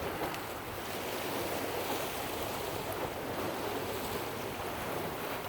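Ocean surf washing steadily against the shore, a continuous wash of water noise.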